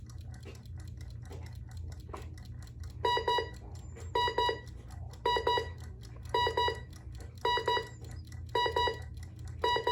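Electronic alarm clock beeping: after about three seconds of a low steady hum, its alarm starts, sounding short clusters of rapid beeps about once a second, seven times.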